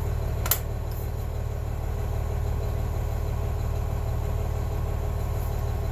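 Steady low mechanical hum, with a single sharp click about half a second in.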